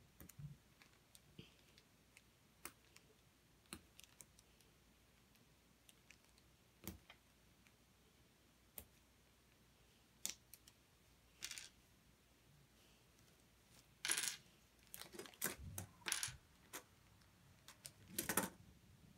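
LEGO bricks clicking and clattering as a model is pulled apart and handled: scattered single clicks, then a busier run of clatters in the last five seconds.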